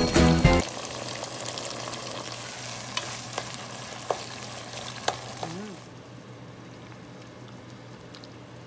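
Pork belly simmering in coconut milk sizzles in a pot while it is stirred, with a few sharp clicks of the spatula against the pot. The sizzle turns quieter about six seconds in. A musical jingle ends within the first second.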